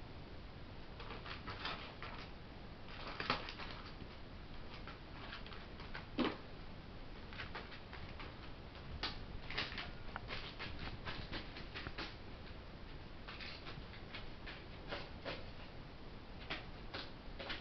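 Juvenile herring gull's feet tapping and pattering on plastic sheeting as it walks about, in light irregular clicks, with a louder knock about six seconds in.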